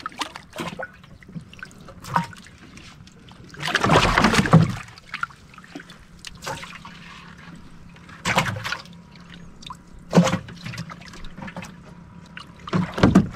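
Water splashing and trickling beside a small boat as a man in the water dives and surfaces by the hull. There is a louder, longer splash about four seconds in and a few shorter splashes later.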